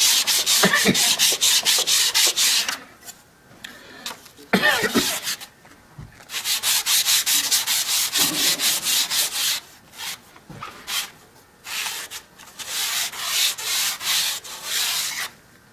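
Steel cabinet-scraper blade rubbed back and forth on 600-grit abrasive paper, honing its face and edges smooth. Quick, even rasping strokes come in runs of a few seconds, with short pauses between.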